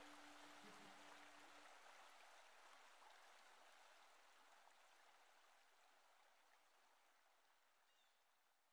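Near silence: a faint hiss fading steadily away, with a low hum that stops about a second and a half in.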